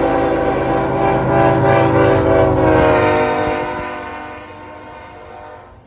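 Canadian Pacific locomotive 8922's air horn sounding one long, loud chord over the low rumble of the train. It falls slightly in pitch and fades in the second half, then cuts off near the end.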